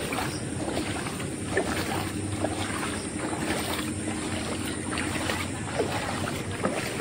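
Feet wading through shallow floodwater, with irregular splashing and sloshing at each step.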